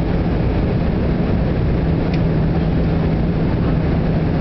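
Steady in-flight airliner cabin noise: the even rush of engines and airflow with a low hum running under it. A faint click comes about two seconds in.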